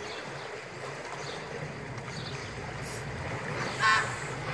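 Steady splashing and lapping of pool water around a swimming dolphin, with a constant outdoor hiss. About four seconds in, a short, loud, high-pitched call cuts through it.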